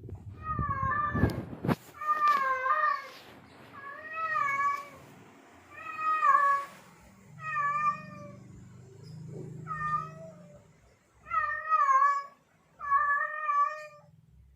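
Tomcat in heat yowling: about eight drawn-out, wavering mating calls in a row, each about a second long, with short pauses between them. A low rumbling noise runs under the first two seconds.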